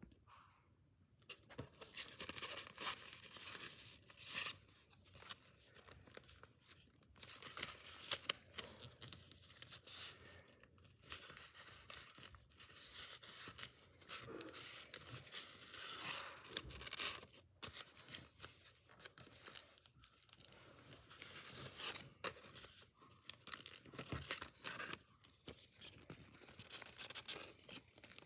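Sheet of origami paper rustling and crinkling as hands fold and crease it, in short irregular rustles with brief pauses.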